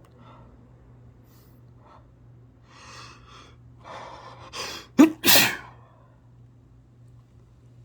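A person sneezing: a few gasping inhales build up over about two seconds, then one loud, explosive sneeze about five seconds in.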